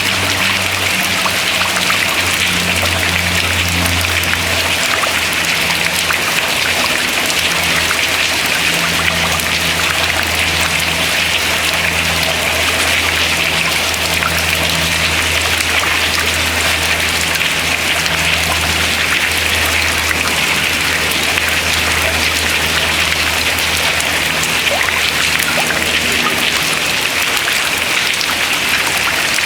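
Water dripping and pattering steadily from ice into the river below, a dense, even patter like rain. A low steady hum sits underneath, fading in and out.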